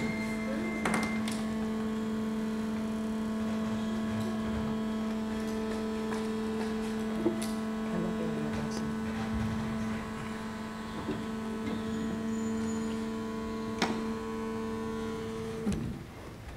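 Small electric water pumps in a working scale model of a dam, giving a steady hum with a low tone and higher overtones. The hum cuts off suddenly near the end.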